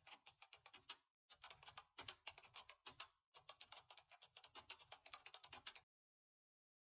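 Computer keyboard typing: quick runs of key clicks in three stretches with short pauses between, stopping about a second before the end.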